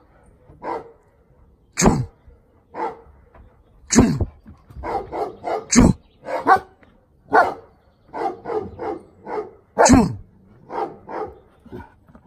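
Dog barking repeatedly: a run of short barks with four much louder ones among them.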